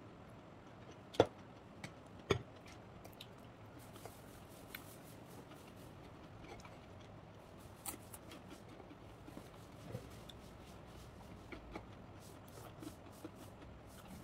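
Quiet sounds of eating by hand from a plate: two sharp clicks about one and two seconds in, then scattered light ticks and taps of fingers on the plate and chewing.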